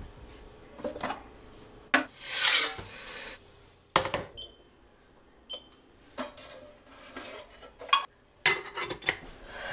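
A metal stovetop kettle and a metal tea tin being handled to make tea: scattered clinks and knocks, with a scraping, rustling stretch about two seconds in.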